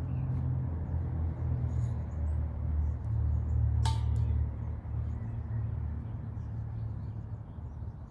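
Low wind rumble buffeting the microphone, with a single sharp click about four seconds in.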